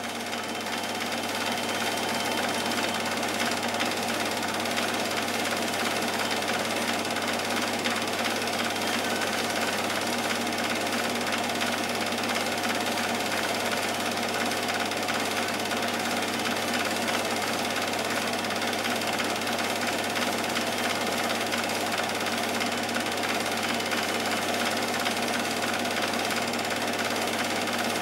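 Film projector running: a steady mechanical whirr with no change throughout.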